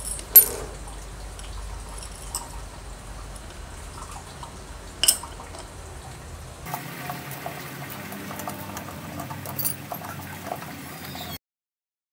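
Metal parts of an air compressor pump clinking and tapping as a cover is fitted onto the housing and its bolt turned with a hex key. A sharp metallic click comes just after the start and another about five seconds in, with fainter ticks between.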